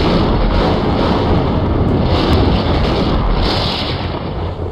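Loud rumbling, crackling sound effect of electrical arcing, with a deep thunder-like rumble and a hiss that swells a few times. It begins to fade near the end.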